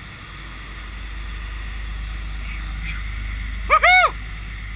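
Steady low drone of a 54-foot custom Carolina sportfishing boat running under way, engine rumble mixed with wind and rushing wake water. Near the end comes a short, loud squeak, twice in quick succession, each sweeping up and then down in pitch.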